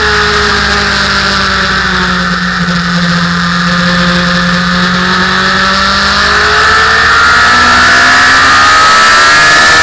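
Motorcycle engine heard from on board the bike: the engine note holds low and sags slightly as the bike slows through a corner, then rises and grows louder as the rider opens the throttle and accelerates out.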